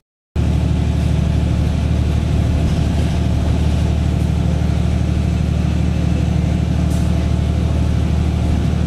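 Engine and road noise of a moving vehicle heard from inside the cabin, a steady low drone that cuts in after a split-second of silence.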